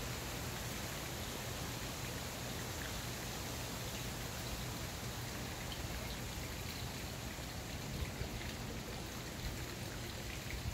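Steady outdoor hiss with a low rumble underneath, and a few light bumps near the end.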